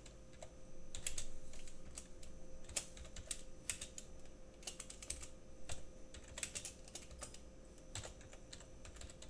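Computer keyboard being typed on: irregular runs of key clicks with short pauses between words, over a faint steady hum.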